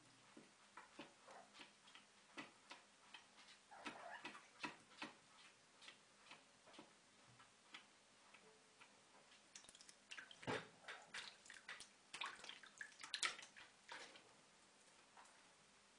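Kitten lapping water from a plastic bowl: faint, irregular wet clicks and laps, a few a second. From about ten seconds in they come faster and louder as the kitten paws at the water and splashes it.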